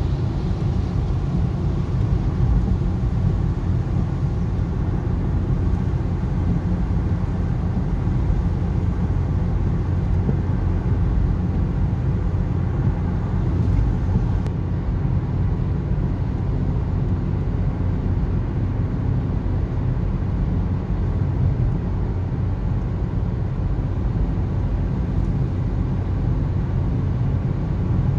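Steady low road noise inside a moving car's cabin at motorway speed: engine and tyres running on a wet road surface.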